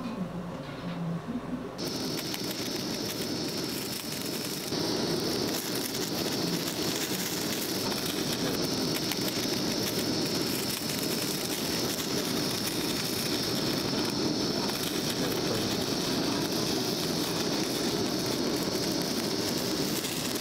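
Handheld cooking blowtorch flame hissing steadily as it sears slices of salmon on a cast-iron plate for aburi-style sushi. It starts about two seconds in and gets louder near five seconds.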